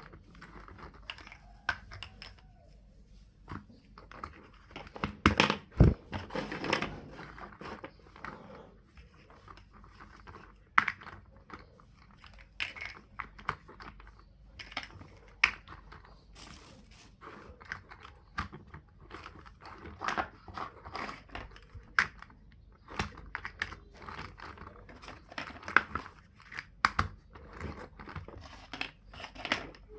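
Plastic building blocks being handled and pressed together, giving irregular clicks and rustles, the loudest cluster about five to six seconds in.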